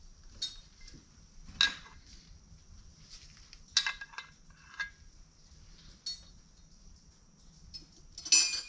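Small metal brake fittings and block-off plugs clinking and tapping as they are handled and fitted into master cylinder ports: a string of separate clinks with a brief metallic ring, the loudest near the end.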